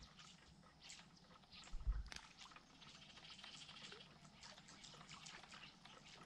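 Near silence: faint outdoor ambience with a few light clicks and a soft thump about two seconds in.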